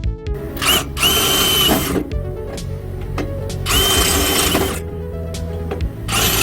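Handheld power drill running in three short runs of about a second each, a steady high whine over the noise of the bit cutting, as holes are bored to mount the replacement fan motor on an air-conditioner outdoor unit. Background music plays throughout.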